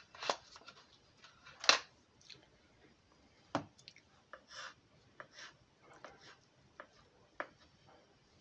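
A pack of blue cheese being handled and unwrapped on a wooden cutting board: scattered light clicks and short crinkling rustles of the plastic tray and wrapper, with a dull knock about three and a half seconds in.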